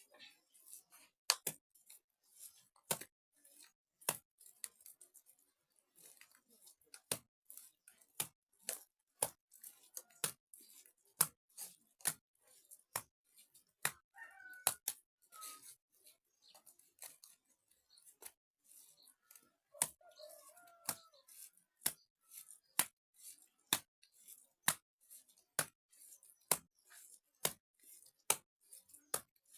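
Wet mud being slapped by hand onto a cracked mud-house wall to fill the cracks, a sharp slap about every second. A chicken calls briefly twice midway.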